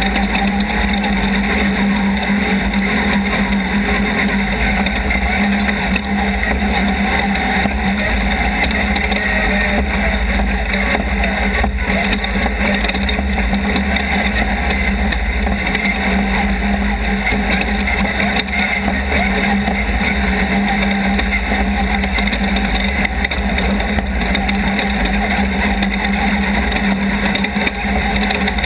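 Off-road race car driving at speed: its engine runs loud and steady, a constant drone that holds the same pitch, under a rush of driving noise.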